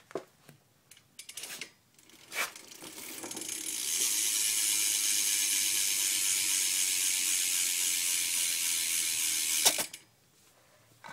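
BMX bike hub ratcheting as the wheel spins freely, a fast, even clicking buzz that builds up over about a second and a half, holds steady, and cuts off suddenly near the end. A few light handling clicks come before it.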